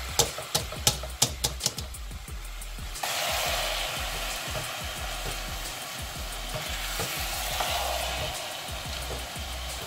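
A pot of rice boiling in sugar syrup and ghee, stirred with a utensil: about eight sharp knocks against the pot in the first two seconds, then a steady sizzle from about three seconds in.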